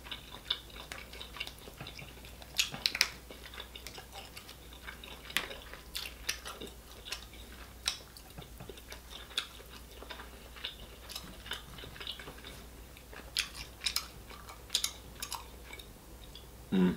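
Close-miked eating of boiled seafood: soft chewing and mouth sounds, with scattered sharp clicks and crackles as crab shell is picked apart by hand. A short low hum comes near the end.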